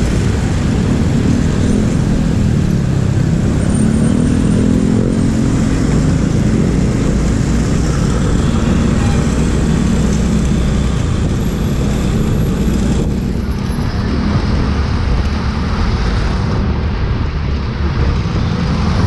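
Motorcycle riding through city traffic, heard from the rider's seat: its engine runs with a note that rises and falls a little, under a steady low rumble of road and wind noise.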